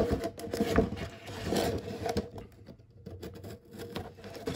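Cardboard box being handled on a wooden table and a pocket-knife blade scraping along it to cut it open: a sharp knock near the beginning, then a string of small knocks and scratchy scrapes.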